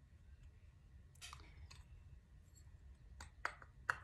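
Small metal clicks as a brake disc and its bolts are handled and fitted onto the hub by hand: a short cluster of clicks about a second in, then three sharp clicks near the end.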